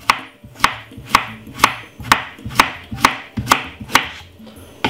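Kitchen knife slicing a cucumber on a wooden chopping board, the blade knocking on the board in an even rhythm about twice a second.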